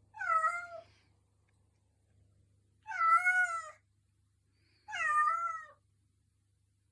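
Domestic cat meowing three times, each meow just under a second long and spaced about two seconds apart.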